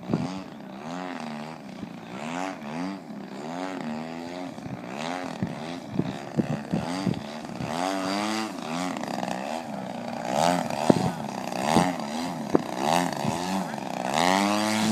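Radio-controlled aerobatic plane's motor and propeller, its pitch sweeping up and down again and again as the throttle changes and the plane passes. Near the end the pitch climbs higher and louder.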